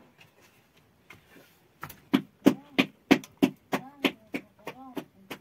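Quiet at first, then from about two seconds in a regular run of sharp knocks, about three a second, each followed by a short ringing tone.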